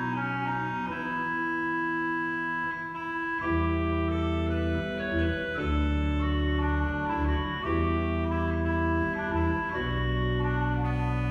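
Church organ playing several voices at once in held, sustained notes. About three and a half seconds in, deep pedal bass notes come in beneath the upper voices, breaking off briefly a few times between notes.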